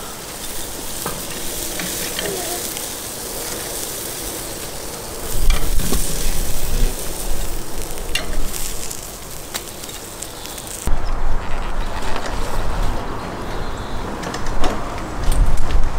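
Grilled lamb sizzling on the hot grates of an offset smoker grill as pieces are lifted off with metal tongs, with scattered clicks of the tongs. About eleven seconds in the sizzle gives way to a lower rumble with a few knocks.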